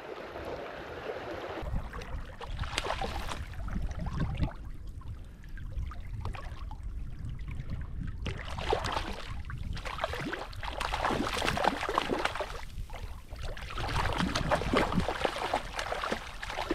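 Water splashing and gurgling in irregular bursts, over a low rumble that starts about a second and a half in.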